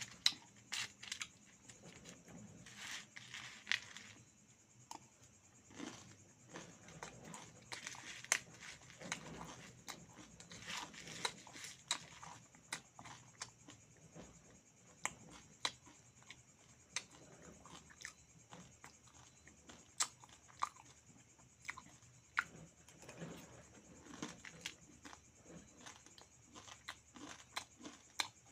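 A person eating meat and rice close up: irregular chewing, biting and mouth clicks, with soft tearing or crinkling noises.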